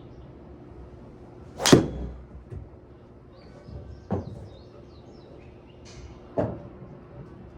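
Titleist TSR4 driver striking a golf ball: one loud, sharp crack of impact. Two fainter knocks follow a few seconds later.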